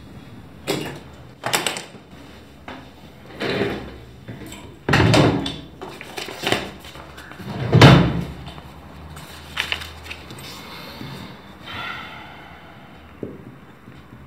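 Office desk drawer being pulled open and pushed shut, with knocks and bumps of things being moved about on the desk. There are about nine separate knocks, and the loudest thump comes about eight seconds in.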